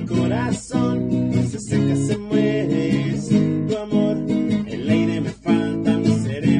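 Instrumental break of a Spanish-language Christian worship song: acoustic guitar strumming chords.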